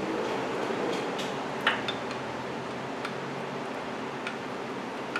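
A few light metallic clicks and taps, the sharpest about a second and a half in, as power steering line fittings are handled and threaded by hand into the steering rack, over a steady background hum.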